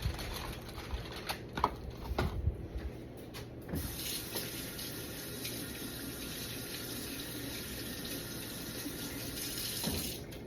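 Sink tap turned on about four seconds in and running steadily for several seconds, rinsing off gloved hands, then shut off near the end. A few light knocks and handling sounds come before it.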